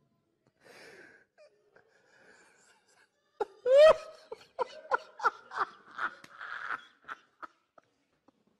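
A man laughing helplessly: faint breathy wheezes at first, then about three and a half seconds in a loud, high rising squeal of laughter, followed by a quick run of gasping laughs that fades out.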